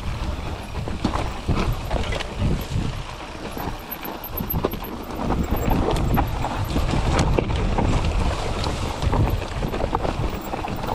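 Mountain bike riding over a rough dirt trail: tyres crunching over dirt and rocks, with constant clicks and knocks from the rattling bike, and wind buffeting the microphone. It gets louder about halfway through.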